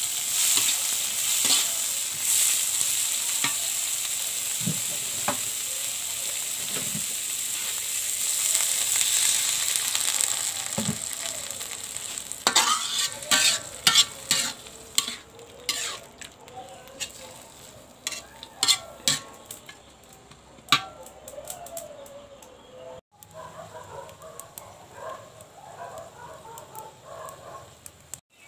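Water spinach stir-frying in a hot pan with a steady sizzle. About halfway through the sizzle fades and a run of sharp clicks and scrapes from the spatula against the pan takes over.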